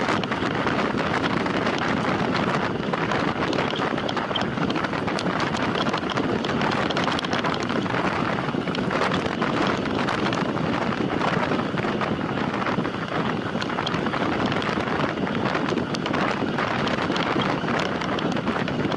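Steady rush of wind over the microphone of a rider on a time-trial bicycle at racing speed.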